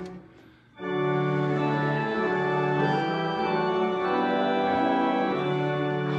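Church organ playing slow, sustained chords. One chord breaks off right at the start, there is a short gap of under a second, and then the chords move on, each held for a second or two.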